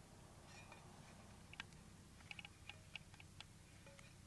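A scatter of faint, light clicks and ticks from hands handling a spark plug boot and wire down in the engine bay, over a low steady rumble.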